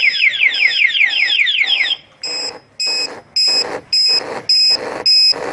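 Electronic siren of a motorcycle anti-theft alarm, set off by someone touching the locked bike. For about two seconds it gives a fast warbling wail, then it switches to a loud pulsed beeping at about two beeps a second.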